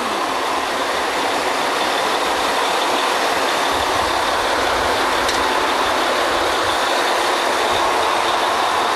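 Drilling rig's diesel engines running: a loud, steady mechanical noise with a faint steady whine, growing slightly louder.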